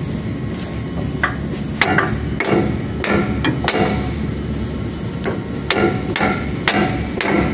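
Sledgehammer blows on steel inside a concrete pump's water box. There are about nine sharp, ringing strikes, roughly two a second, starting about a second in, with a short pause midway.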